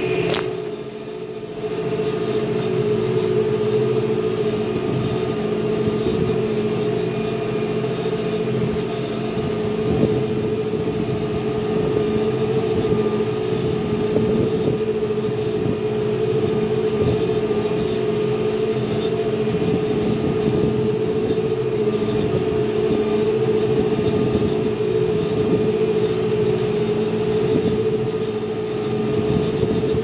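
John Deere 5100E tractor's diesel engine running at a steady drone while driving across the hayfield, heard from inside the cab.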